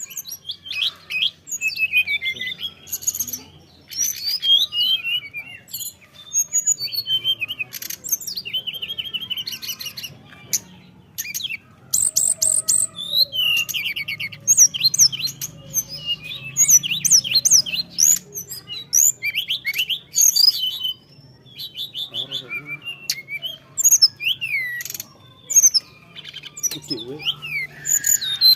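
A caged songbird singing vigorously and almost without pause, the full 'gacor' song kept by Indonesian bird-keepers. It is a rich, varied run of high trills, sweeping whistles and fast repeated notes, with only brief gaps.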